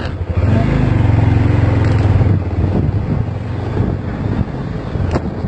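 Honda XR250 Tornado's single-cylinder four-stroke engine running under way with wind on the microphone. It runs louder for about two seconds, then eases off.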